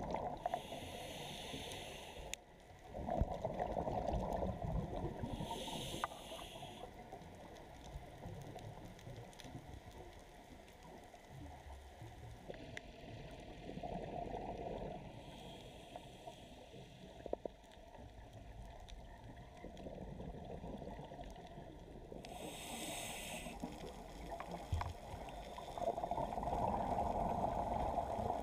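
Underwater ambience through a camera housing, muffled: a scuba diver breathing through a regulator, with a high hiss a few times several seconds apart and gurgling bubble rumbles between, over a steady low rush of water.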